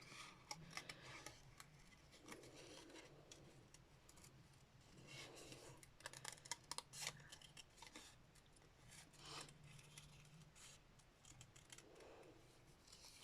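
Scissors cutting through cardstock: faint, irregular snips with light paper rustling as the card is turned to follow the outline of a stamped image.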